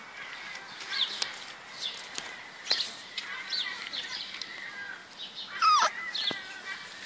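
Beagle puppies squeaking and yipping in play: short high calls throughout, with one louder, falling yelp a little before the end.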